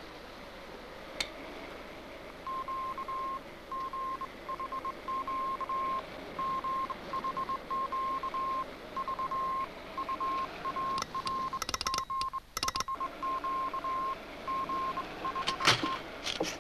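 Morse code signal: a single steady high beep keyed on and off in short and long pulses. Sharp clicks and crackles break in towards the end, with the loudest click near the end.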